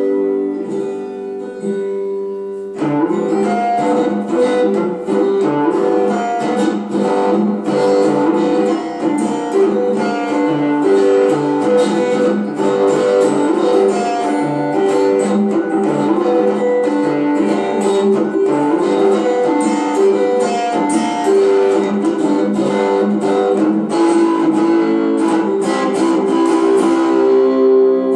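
A canjo with a Marvel Mystery Oil can for its body, played clawhammer-style in an old-time tune. A chord rings out for a couple of seconds, then a steady run of quick plucked notes starts up.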